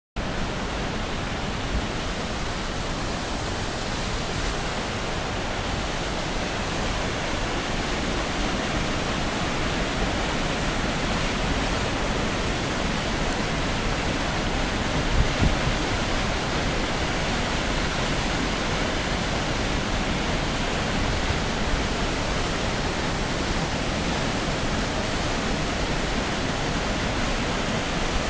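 Waterfall: a steady, even rush of falling water. A couple of brief low bumps about halfway through.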